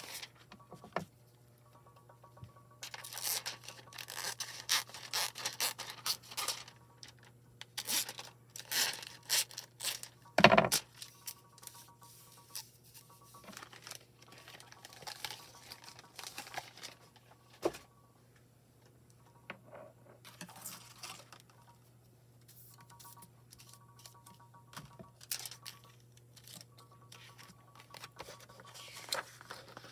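Foil and paper sheets being handled: irregular crinkling and rustling, with a sharp knock about ten and a half seconds in, over a steady low hum.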